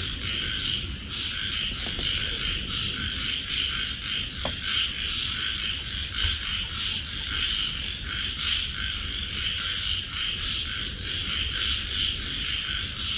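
A dense chorus of frogs calling, a steady fast-pulsing trill.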